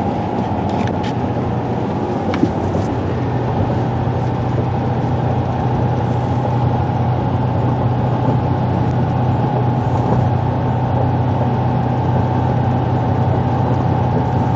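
Steady engine and road drone inside a vehicle cruising at highway speed, with no change in pace.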